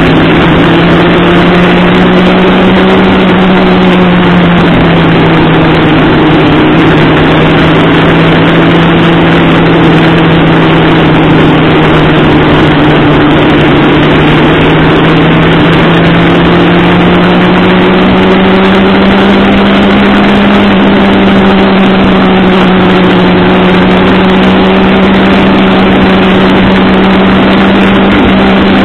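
Motorcycle engine running at a steady cruise, heard from on board over a constant rush of wind. The engine note dips slightly about four seconds in and climbs gently through the second half.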